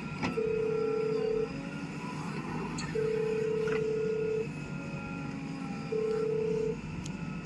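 A single-pitched buzzing horn sounds three times, held about a second, then about a second and a half, then briefly, over the steady rumble of a running engine.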